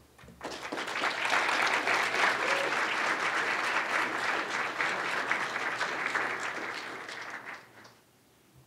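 Audience applauding. It starts within the first second, holds steady, then fades and stops near the end.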